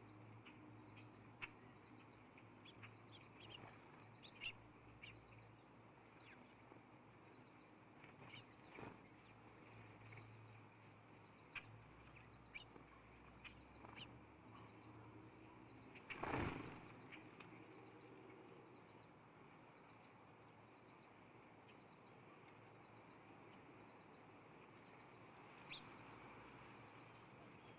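Birds at a feeder: faint scattered chirps and small clicks, with one louder flurry of wing flapping about sixteen seconds in.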